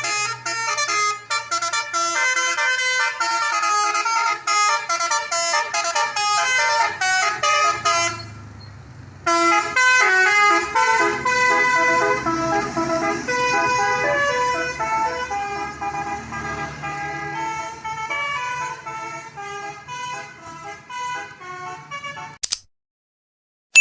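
Basuri musical horn on a tour bus playing fast melodic runs of changing notes over a low steady hum. It breaks off for about a second eight seconds in, resumes, and cuts off suddenly near the end.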